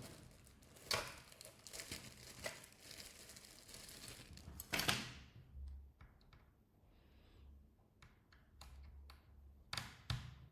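Screws being worked out of a laptop's plastic bottom panel: a quiet rasping scrape of the screwdriver, loudest about halfway through, with scattered small clicks and taps as the screws and tool are handled.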